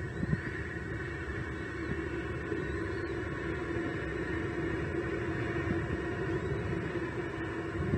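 Steady background rumble and hiss with a faint hum, and a few faint short high chirps.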